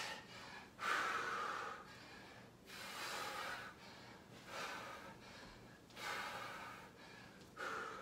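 A man breathing hard through lunges with a resistance band, five short puffs of breath about a second and a half apart, in time with the reps.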